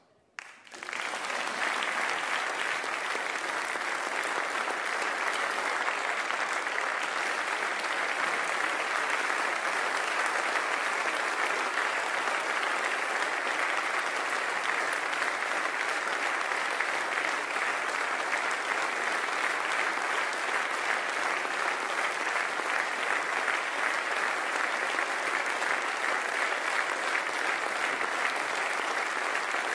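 Steady applause from a large standing audience, an ovation at the close of a speech, starting about a second in and holding at an even level.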